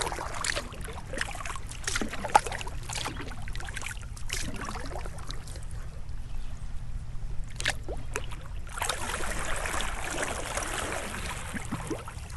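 Kayak paddle strokes in calm water: the blade dipping and water trickling and splashing off it, with a quieter pause in the middle before the strokes pick up again.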